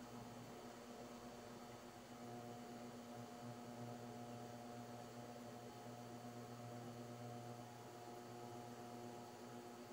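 Faint, steady hum and buzz of an induction cooktop running, its coil and cooling fan heating a covered pot.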